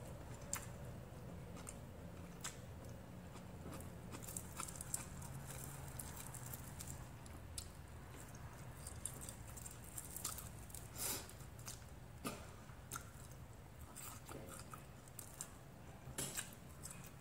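Close-up chewing of grilled milkfish and rice eaten by hand, with many short mouth clicks scattered throughout.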